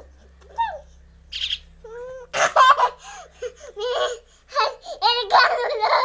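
Toddler laughing and squealing in repeated bursts from about two seconds in, mixed with short high calls from a fledgling common myna.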